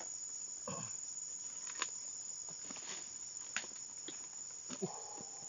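Steady high-pitched chirring of forest insects, with a few light sharp clicks and faint rustles from close handling.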